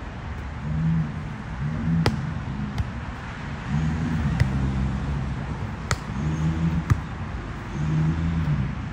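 A volleyball being struck during a rally: several sharp slaps a second or so apart, over a low hum that swells and fades every second or two.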